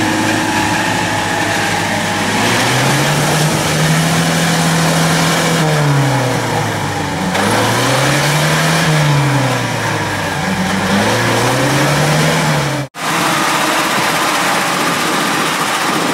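UAZ-469 engine revving up and falling back several times under load as the jeep churns through an icy, flooded creek. There is a brief break in the sound near the end.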